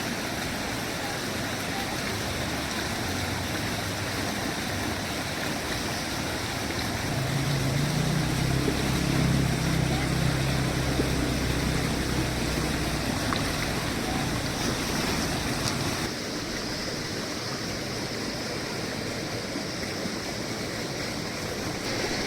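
Steady rushing of flowing water. A low engine hum joins it in the middle and fades again, and the noise changes abruptly a few seconds later.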